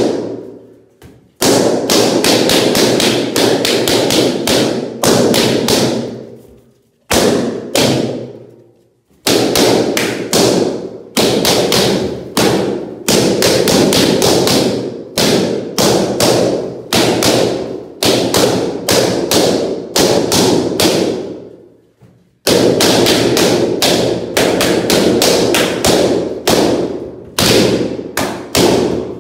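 Latex balloons being burst one after another by strikes of a sword: a rapid string of sharp pops, several a second, with a few short pauses.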